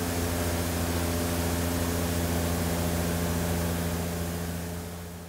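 Greenhouse misting system running: a steady hiss of water mist from the overhead nozzles over a steady low machine hum, fading away near the end.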